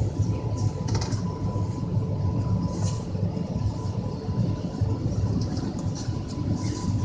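Steady rumble of a CNR electric multiple unit rolling over the rails, heard from inside its driver's cab, with a faint steady high tone running through it. A few short, sharp clicks about a second in, near three seconds, and near the end as the wheels cross pointwork.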